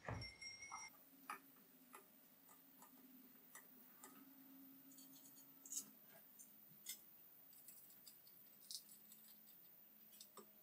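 Near silence broken by faint, scattered light clicks and ticks of metal hardware as a spindle motor is fitted and fastened onto a CNC router's Z-axis mounting plate. A brief louder knock comes right at the start.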